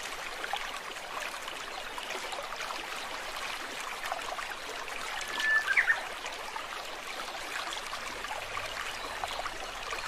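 Steady rushing noise like running water, with faint scattered ticks, and a brief high squeak about halfway through.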